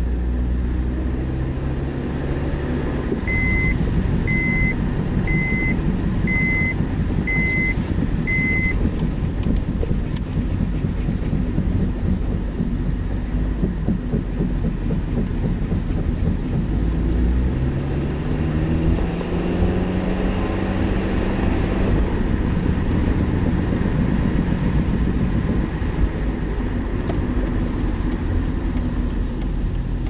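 A car's engine and road noise heard from inside the cabin while driving, in a car that is said to be making knocking sounds. The engine note rises as the car speeds up about two thirds of the way through. From about three seconds in there are six short high beeps, about a second apart.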